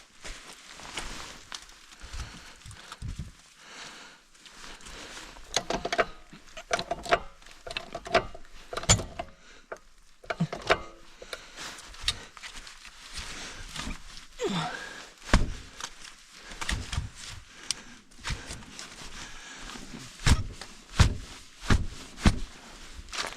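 Irregular knocks, clunks and clicks of parts and tools being handled during disassembly work, with a brief falling squeak about halfway through.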